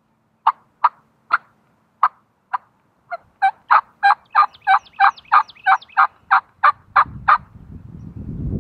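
Wild turkey yelping: a few spaced yelps, then a quicker run of about three yelps a second that stops about seven seconds in. A low rumbling noise rises near the end.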